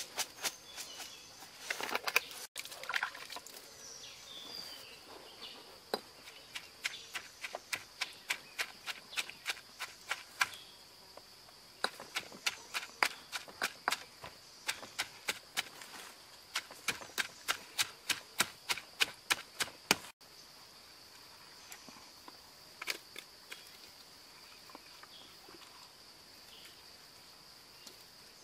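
Stone pestle pounding a chilli-and-herb paste in a stone mortar, sharp knocks about three to four a second, stopping about twenty seconds in; softer scattered handling sounds follow. A steady high insect drone runs underneath.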